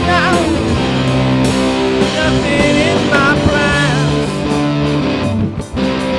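Rock music played by a band: electric guitar over bass and drums. The music briefly thins out about five and a half seconds in.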